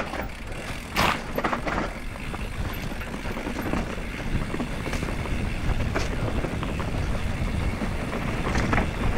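Mountain bike rolling fast down a dirt singletrack: a steady rumble of tyres over dirt and wind on the camera's microphone, with the bike rattling and knocking over bumps, the sharpest knock about a second in.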